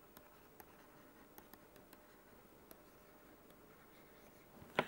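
Faint, scattered ticks and taps of a stylus writing on a tablet screen, with one sharper click near the end.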